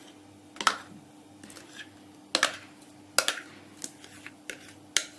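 Irregular light clicks and knocks of a bowl and utensil as eggless chocolate cake batter is poured into a springform cake tin, over a faint steady hum.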